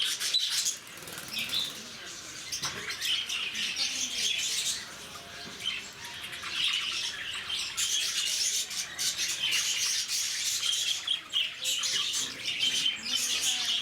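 A flock of lovebirds chattering: many short, high-pitched chirps and squawks overlapping without a break.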